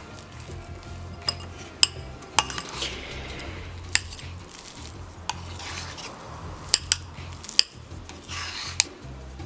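Metal spoon stirring grated coconut and condensed milk in a ceramic bowl: short scraping strokes with about eight sharp clinks of the spoon against the bowl.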